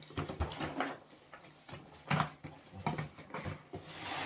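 A doll's box and its packaging being handled and pulled at: scattered rustles, taps and knocks, the sharpest about two seconds in.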